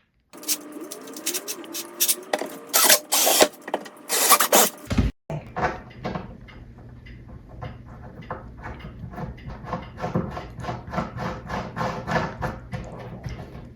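Screws being driven through a wooden cabinet door to mount a knob or pull: a run of clicks and scraping, then, after a short break, a steady series of ticks at about three to four a second.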